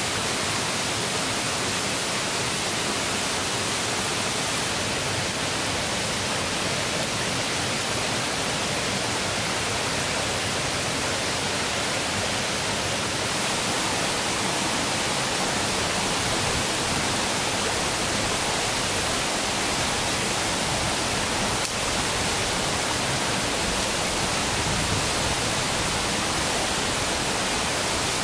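Steady rushing of running river water, an even hiss with no break.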